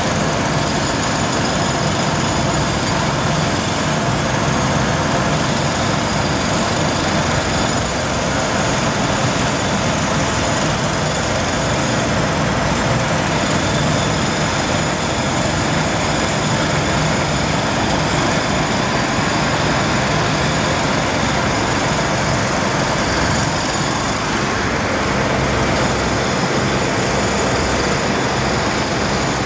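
Loud, unbroken construction-site machinery noise, steady throughout with many held tones over a dense roar. It is loud enough to drown out passing cars and trucks.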